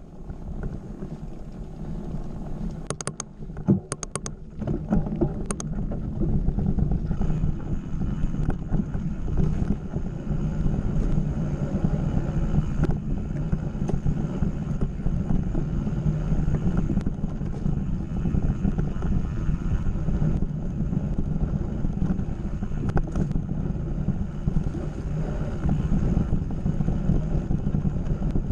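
Mountain bike riding along a dirt singletrack: a steady low rumble of tyres on the trail and wind buffeting the camera's microphone, with a few sharp clicks and rattles about three to six seconds in.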